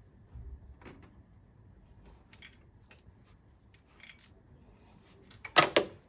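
Faint scattered clicks of metal parts being handled, then a short, loud metallic clatter about five and a half seconds in as the old timing chain is pulled free of the 1.2 TSI engine.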